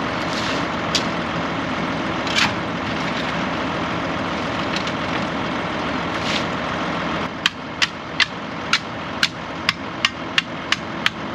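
Tractor engine idling steadily, with an occasional knock. About seven seconds in the engine drone drops a little and a run of sharp taps begins, about two a second, as the fresh concrete slab is worked.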